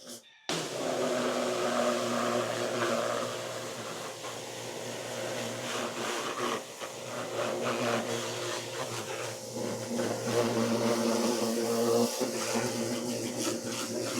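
Giraffe Tools portable electric pressure washer running, its motor and pump giving a steady hum under the hiss of the spray. It starts suddenly about half a second in.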